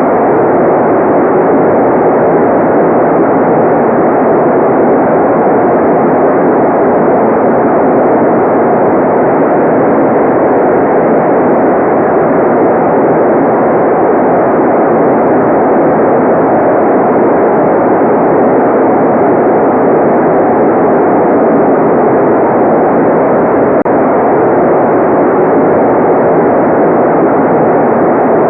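Continuous synthetic noise for relaxation, a steady muffled rush with no treble and no change in level or character.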